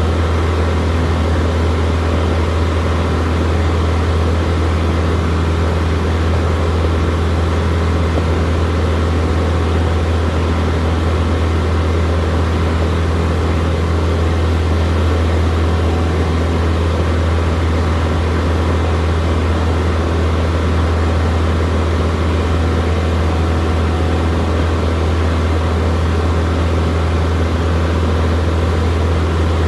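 Light single-engine propeller plane's piston engine and propeller heard inside the cockpit: a deep, steady drone in level cruise.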